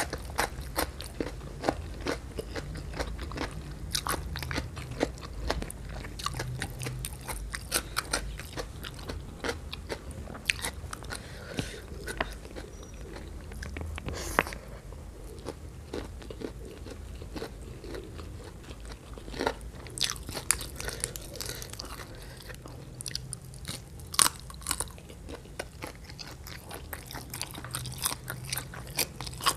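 A person chewing and crunching mouthfuls of spiced rice and spicy stir-fried shrimp close to the microphone: a dense, irregular run of sharp crunches and clicks.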